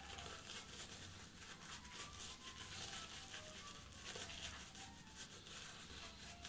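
Shaving brush face-lathering La Toja shaving soap on a bearded face: faint, quick, repeated brushing strokes of wet lather against skin and stubble.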